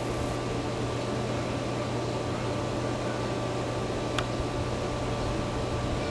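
A steady mechanical hum over a constant hiss, with a single faint click about four seconds in.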